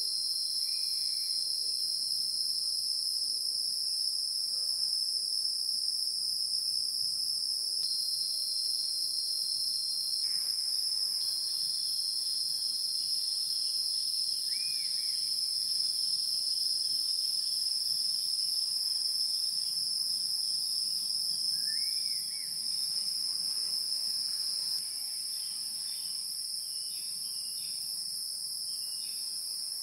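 Steady, high-pitched chorus of insects with a fine pulsing texture, dropping slightly in level about three quarters of the way through.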